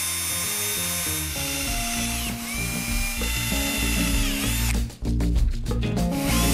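Background music with a steady beat, over a cordless drill whining up to speed, holding and winding down several times as it bores into an aluminium tube.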